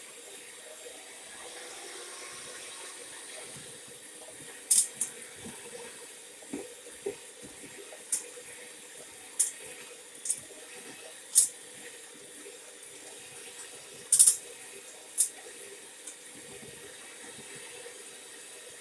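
Electric hand mixer creaming butter and sugar: a steady whirring hiss, with a series of sharp clacks as the beaters knock against the bowl. The butter is colder than intended, so the mix is stiff.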